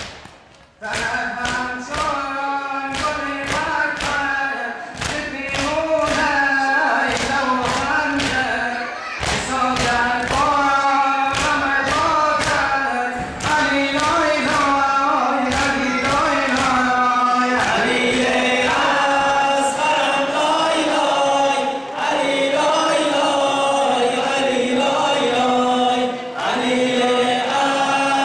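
A group of men chanting a lament in unison while beating their chests in time (matam), the blows landing about twice a second. The chest-beating fades out after about seventeen seconds and the chanting goes on alone.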